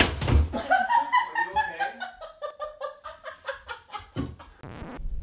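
A person falling to the floor with a heavy thud, then laughing hard: a long run of quick breathy pulses, about four or five a second, that drift down in pitch and stop about five seconds in. Right at the end a low steady rumble takes over.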